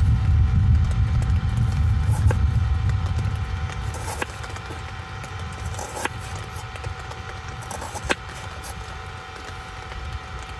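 Small kitchen knife slicing red onion on a wooden cutting board: sharp taps of the blade hitting the board every second or two. Under them, a low rumble of thunder fades away over the first few seconds.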